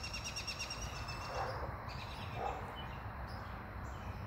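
An animal's pulsed trill, a fast run of high, even pulses that lasts about the first two seconds, with a fainter trill about three seconds in, over quiet outdoor background.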